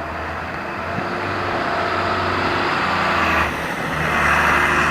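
Road traffic: a motor vehicle running close by, its engine hum getting louder near the end.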